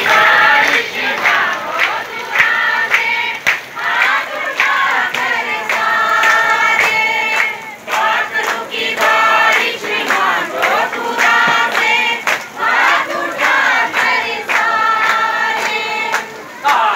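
A congregation singing a worship song together, many voices in unison.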